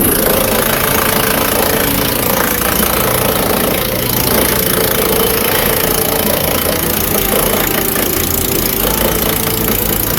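Woodmaxx wood chipper running under engine power, giving a loud, steady mechanical din with the engine's low drone beneath it.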